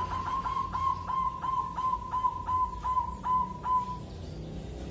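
Zebra dove (perkutut) singing its cooing song: a run of short coos all at about the same pitch, quick at first and slowing to roughly four a second, ending about four seconds in.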